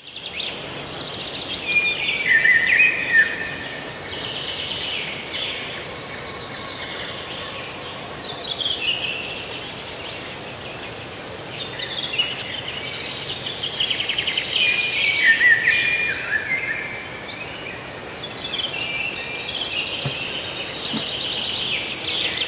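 Songbirds singing in repeated trilled phrases that step down in pitch, the loudest runs about 2 to 3 seconds in and again around 12 to 16 seconds in, over a steady outdoor background hiss.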